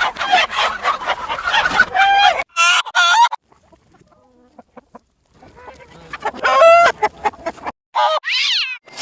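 Cartoon chicken clucking and crowing sound effects played in reverse, in two dense bursts of pitched calls with a quieter gap between them, followed near the end by a short run of sliding tones.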